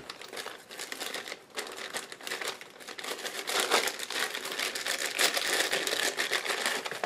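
Clear plastic packaging bags crinkling continuously as they are handled and pulled open.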